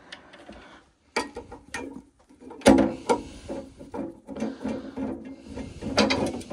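Irregular clicks, knocks and metallic rattling from hand work inside a gas boiler: screws being undone and a metal frame being worked free, with the loudest knock a little under three seconds in.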